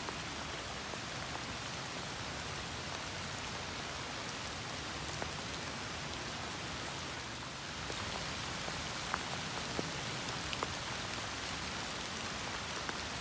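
Steady rain falling on fallen autumn leaves: an even hiss with scattered sharper drop ticks, a few louder ones in the second half.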